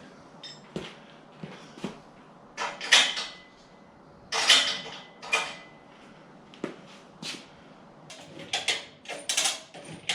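A series of irregular clanks and knocks from metal parts and tools being handled, a couple of them leaving a short metallic ring.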